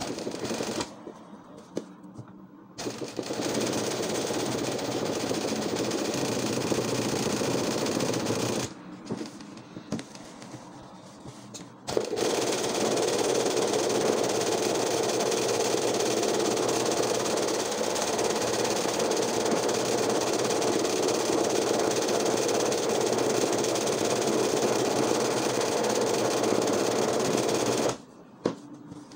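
Sewing machine stitching embroidery at speed, in stop-and-start runs: a couple of short starts, a run of about six seconds, a pause of about three, then a long run that stops near the end.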